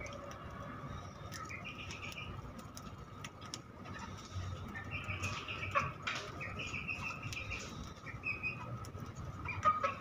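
Budgerigars chirping and chattering in short, choppy phrases while feeding, with a few sharp clicks of beaks pecking at seed.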